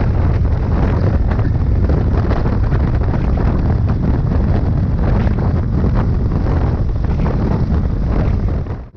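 Heavy wind buffeting the microphone of a camera mounted on a moving motorcycle at road speed, with the motorcycle's engine running underneath.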